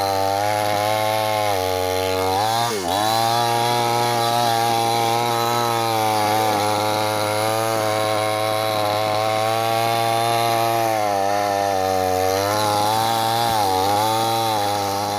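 Chainsaw running at high speed, cutting wood; its pitch dips and recovers twice, about three seconds in and again near the end.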